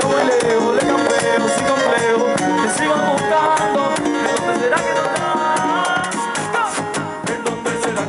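A live Latin dance band playing through a stage PA, with keyboard and congas, a busy beat of sharp hand-percussion strokes under melodic lines.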